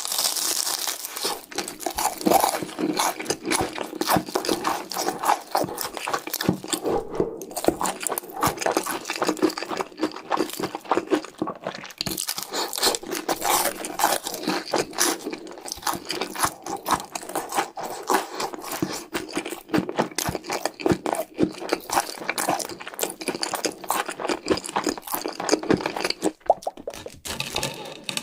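Close-miked chewing and crunching of cheese sticks (cheese fingers): a dense, irregular run of crisp clicks and smacks from the mouth.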